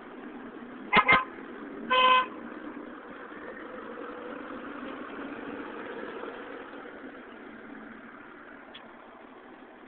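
Vehicle horn: two quick toots about a second in, then one longer toot a second later. A NovaBus RTS-06 transit bus runs steadily under the horn, getting louder as it passes and then fading.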